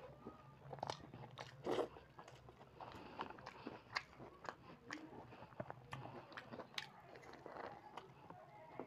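Close-up mouth sounds of a person eating by hand, picked up by a clip-on microphone: wet chewing and lip smacks with many short irregular clicks. The sharpest click comes just before two seconds in.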